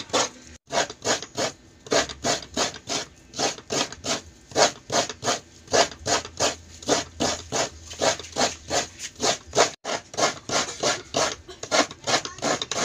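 Hands squeezing and kneading wet grated coconut in an aluminium basin to press out coconut milk, an even run of rubbing strokes about three a second.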